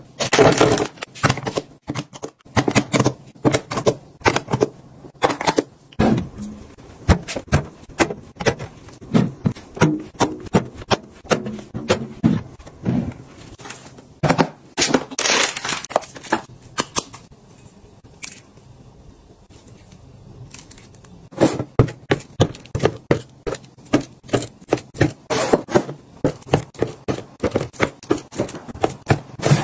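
Hands handling plastic storage canisters and cardboard milk cartons: many sharp clicks, taps and scrapes as containers are set down and small cartons are packed one by one into a plastic bin, with a quieter stretch in the middle.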